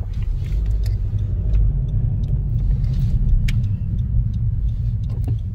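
A car driving along a city street, heard from inside the cabin: a steady low rumble of engine and road noise, with a few light clicks.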